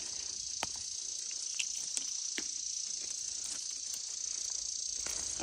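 Steady high-pitched chorus of insects, with a few faint clicks and rustles scattered through it.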